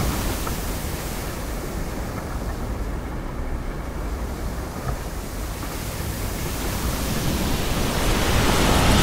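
A steady rushing noise with no separate bangs, dipping a little in the middle and swelling again near the end before it cuts off suddenly.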